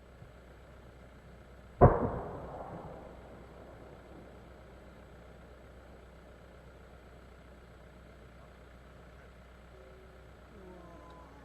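A single firework boom: a sharp bang about two seconds in, followed by a rolling echo that fades over about two seconds, then a long quiet stretch.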